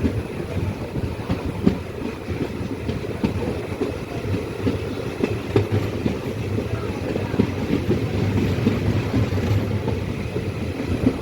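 Passenger train running on the Shoranur–Nilambur line, heard from on board: a steady rumble with irregular clicks of the wheels over the rails.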